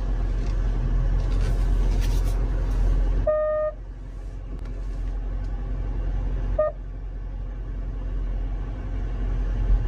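SUV running in reverse, heard from inside the cabin as a steady low rumble. A short pitched beep sounds about three seconds in, and a briefer one near seven seconds.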